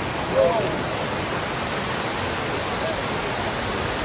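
Small stream cascading over rocks in a short waterfall: a steady, even rush of water.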